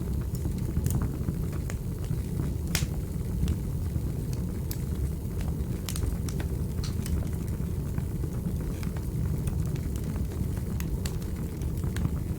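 Wood fire burning in a fireplace: a steady low rumble of the flames with irregular sharp crackles and pops, one louder crack about three seconds in.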